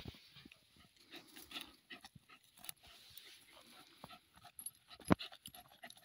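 Seven-month-old jagdterrier digging at a burrow with teeth and paws, breathing hard into the hole, with irregular scrapes and crunches of dry earth. A sharper knock comes about five seconds in.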